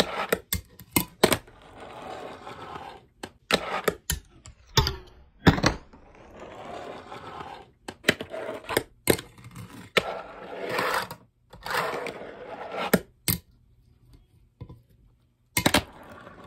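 Fingerboard tricks on a wooden desk and ledge: the small wheels rolling over the wood, sharp clacks as the board is popped and lands, and the trucks grinding along the ledge in a 5-0. A dozen or so clacks come in clusters, with a quieter gap a little before the end.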